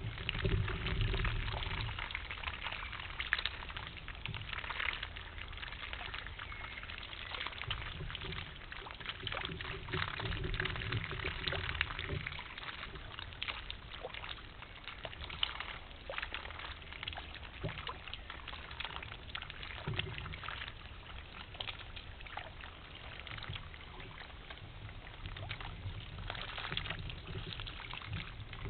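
Forest stream water trickling and splashing steadily, with small clicks and splashes scattered through it.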